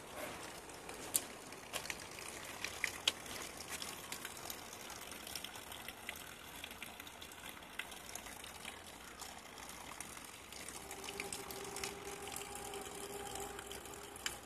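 Spring water pouring from a pipe and trickling down a rock channel, a steady splashing. Footsteps crunch on the track ballast in the first few seconds, and a steady pitched hum sounds for about three seconds near the end.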